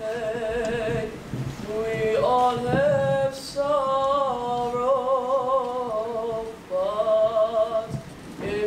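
A high-school boys' choir singing unaccompanied: a young male voice carries slow, long-held notes with vibrato, with short breaks between phrases.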